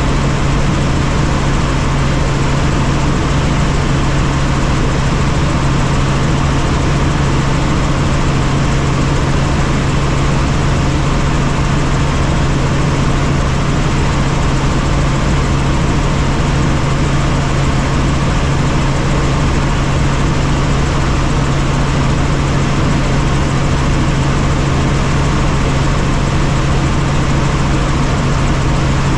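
Helicopter in flight heard from inside the cabin: a loud, steady drone of engine and rotors with a strong low hum under an even rushing noise.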